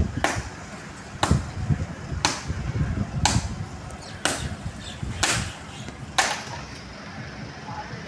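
Rhythmic chopping blows on wood from cutting a tree, about one sharp strike a second, seven in all, stopping about six seconds in.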